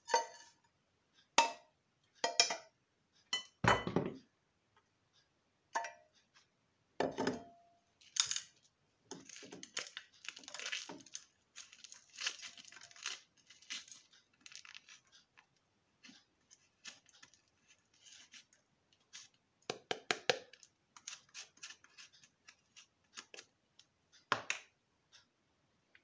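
A spoon and containers clinking and knocking against an enamelled saucepan as ingredients are put into it, with a stretch of scraping and rustling in the middle and scattered small clicks after it.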